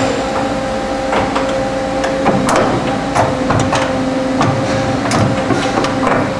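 Okuma & Howa Millac 4VA vertical machining center's automatic tool changer cycling: the arm grips the tool, pulls it from the spindle and swings it away, with a series of irregular mechanical clunks and clacks over the machine's steady hum.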